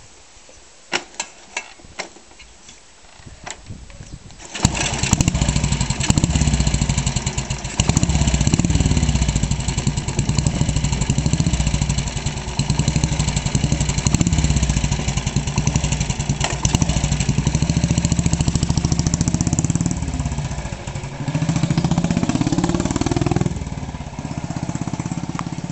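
1956 Matchless G80 500cc single-cylinder engine being kick-started: a few sharp knocks as it is kicked over, then it catches about four and a half seconds in and runs with the revs rising and falling. Near the end the revs climb as the bike pulls away, then drop back.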